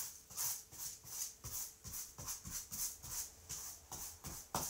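A paintbrush scrubbing matte and gloss medium over tissue paper on a canvas, gluing the paper down, in quick strokes about three a second.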